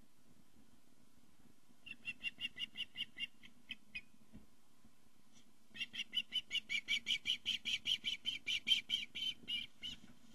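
Osprey calling: a short series of rapid, high-pitched chirps, then after a brief pause a longer and louder series, about six notes a second.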